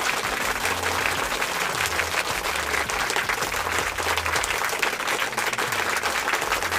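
Sumitomo hydraulic crawler excavator moving through a wet, brushy creek bed: a dense crackling clatter of tracks and crushed vegetation over a low engine rumble that swells and fades.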